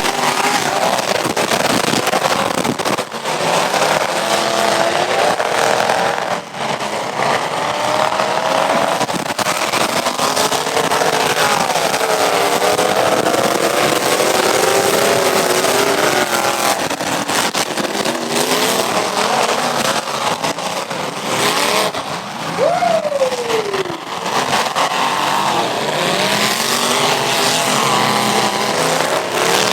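Several demolition derby cars' engines revving hard at once, their pitches wavering up and down over a constant din; about three-quarters of the way through, one engine's pitch drops away.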